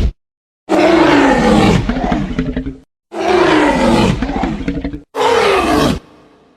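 Tyrannosaurus rex roar sound effect: three deep, loud roars in a row, each falling in pitch. The first two last about two seconds each and the last is shorter.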